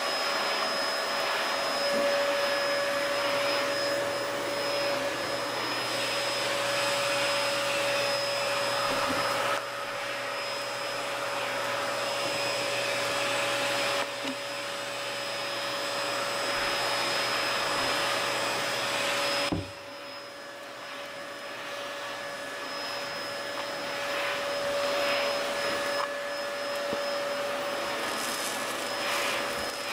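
Vacuum cleaner running in the background: a steady whine held at one pitch throughout. It drops noticeably in level about two-thirds of the way through but keeps going.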